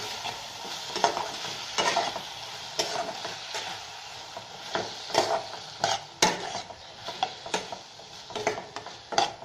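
Sliced onion, capsicum and carrot with soya, ketchup and red chilli sauces sizzling in hot oil in a pan on high flame. A utensil stirs them, scraping the pan about once a second.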